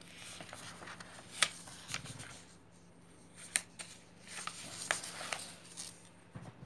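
Sheets of paper rustling and crackling as they are handled and a page is moved aside, with a few sharp crinkles.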